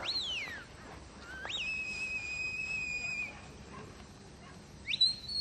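Handler's herding whistle commands to a border collie working sheep: three whistles, a quick rising-then-falling one, a long steady held note, and a sharp rise to a high held note near the end.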